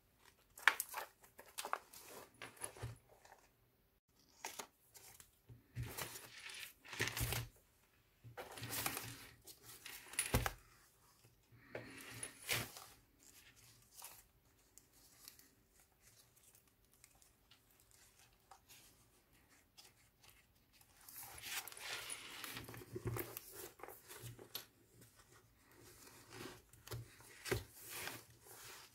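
A handmade junk journal handled and flipped through: scattered clicks and clinks as its tassel charm of cowrie shells and metal beads is moved, and the thick bundle of paper, card and fabric pages turned and fanned, rustling in flurries, with a denser stretch of rustling about three-quarters of the way through.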